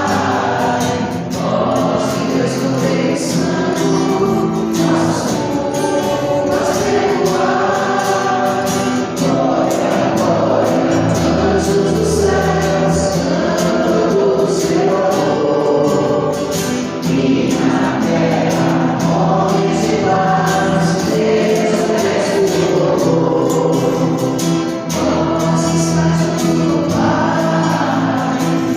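A choir singing a gospel song, continuously.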